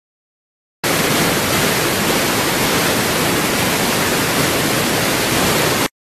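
A loud, even hiss of noise, like static, that switches on abruptly about a second in and cuts off just as abruptly shortly before the end.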